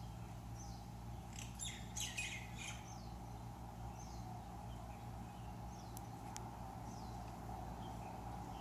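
Wild birds calling at a backyard feeding spot: many short, high, falling chirps, with a louder burst of harsher squawking calls between about one and a half and three seconds in. A steady low hum runs underneath.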